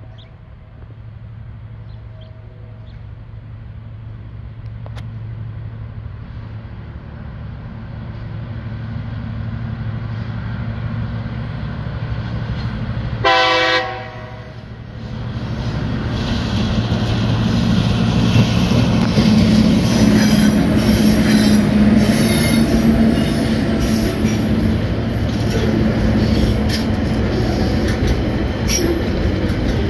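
Two TasRail TR-class diesel locomotives approach with a steady engine hum that grows louder, and give one short horn blast about thirteen seconds in. A loud rumble and clatter of container wagons rolling past follows.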